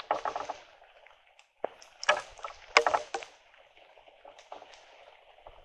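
Wet rustling and scuffing of someone moving through rain-soaked undergrowth, in irregular bursts with the loudest about two and three seconds in, fading to faint rustles in the second half.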